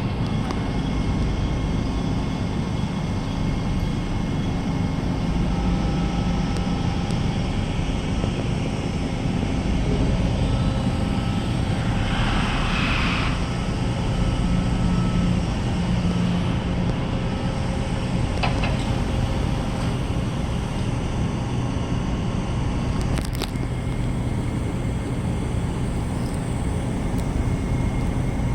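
A car ferry's diesel engines running steadily under way, with a low hum and rumble. A short hiss comes about twelve seconds in.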